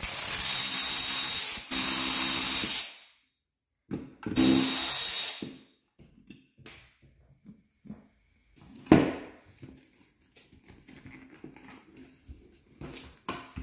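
Power drill running in short bursts to back out the fasteners holding a car door speaker in its housing: about three seconds with a brief dip, then about a second more after a pause. A sharp click comes near nine seconds in, followed by light handling clicks.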